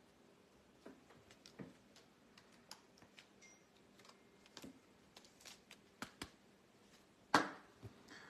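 Trading cards being handled: scattered light clicks and taps, with one louder knock about seven seconds in.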